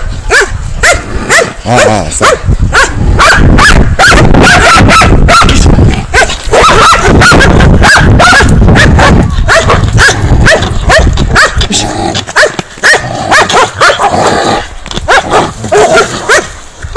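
Hunting dogs barking rapidly and frantically as they bay at and attack a downed wild boar, several barks a second, loudest through the middle.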